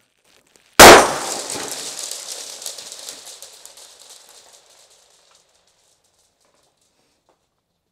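A single loud bang from a pyrotechnic grenade going off inside a cardboard box, about a second in. A crackle and patter of small clicks follows and dies away over about four seconds.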